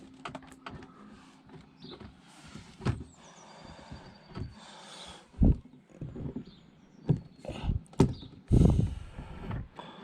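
Plastic interior door trim on a Saab 9-5 being tugged and pried off the door: irregular knocks and clicks as the panel and its clips give, with scraping and rustling of the plastic in between.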